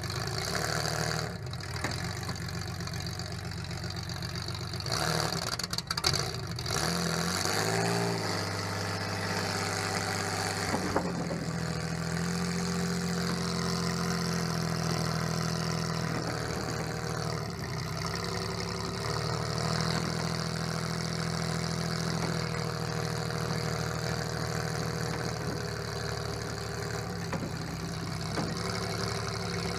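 Engine of a welded-up Chevrolet Lumina demolition derby car idling, heard from inside its stripped cabin, blipped up and back down about eight seconds in and then settling back to a steady idle. A few sharp knocks sound around five to six seconds in.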